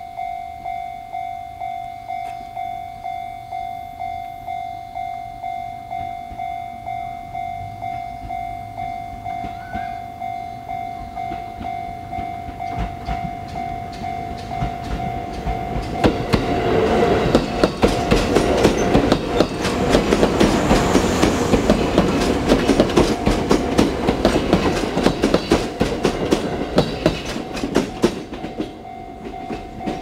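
Japanese level-crossing warning bell ringing in a steady, pulsing electronic tone of the type heard on the Chichibu Railway. About halfway in, a Seibu 4000-series electric train runs over the crossing with its wheels clattering over the rail joints, louder than the bell. The clatter fades near the end, and the bell stops right at the end.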